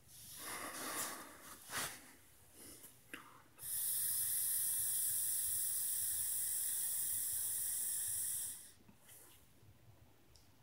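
A few short breathy puffs as vapor rings are blown out, then a long draw on an e-cigarette: a steady hiss of air pulled through the vape that lasts about five seconds and cuts off sharply.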